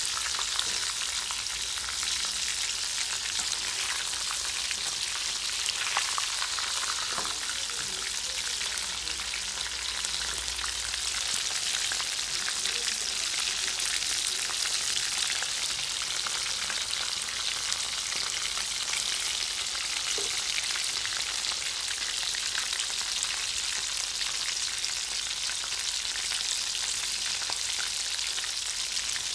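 Breaded fish fingers deep-frying in hot oil: a steady sizzle thick with fine crackling.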